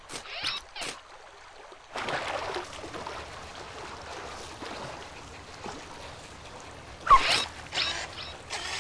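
Cartoon water sound effects: a sudden rush of water about two seconds in, then a steady underwater wash. A short sliding pitched sound comes about seven seconds in, followed by a few short noisy splashes or bubbles.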